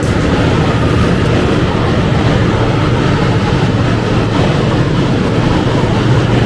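Steady, loud rumble with a rushing of air that stays unchanged throughout, the running noise of a paint booth's ventilation during spray painting.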